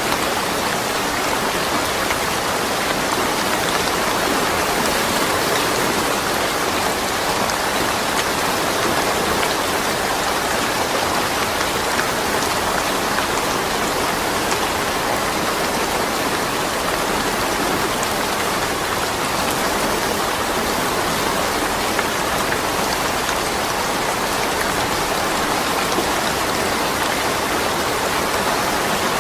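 Steady rain falling, an even hiss of drops with no thunder.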